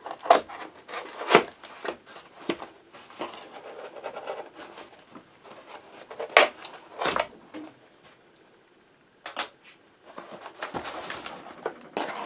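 A cardboard shipping box being cut open with a small knife and its flaps pulled open: sharp snaps and scrapes of cardboard and packing tape, with a pause of about a second and a half late on, then steadier rustling of cardboard as the box is folded open.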